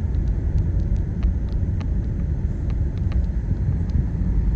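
Car driving, a steady low rumble of road and engine noise heard from inside the cabin, with scattered light clicks.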